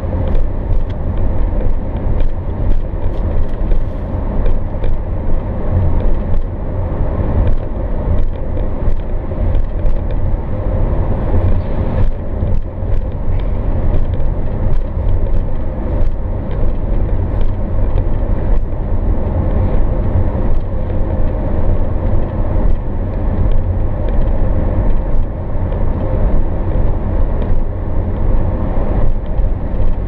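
A car in motion heard from inside the cabin: steady low rumble of the engine and tyres on the road, with many small ticks and rattles throughout.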